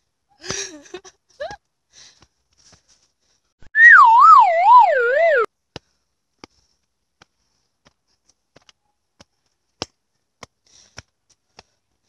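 A loud whistle lasting under two seconds, wobbling up and down in pitch about twice a second as it slides downward, then cutting off suddenly.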